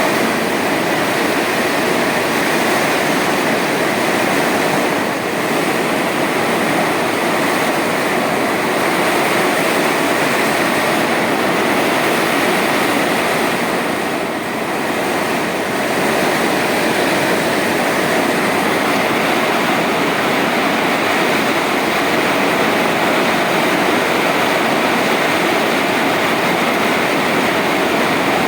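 Heavy rain pouring down steadily, a dense even hiss that eases slightly twice for a moment.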